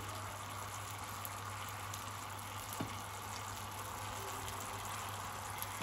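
Tomato masala sauce frying and bubbling in a pan, a steady sizzling hiss.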